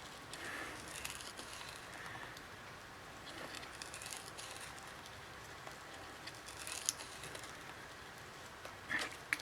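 Faint scratching with small clicks as a hard plastic card is worked under a tablet's glass screen, cutting through the adhesive.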